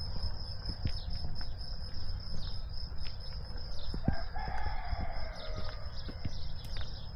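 A rooster crows once, about four seconds in, for about two seconds. Behind it is an outdoor background with a low rumble, a steady high whine and small scattered clicks.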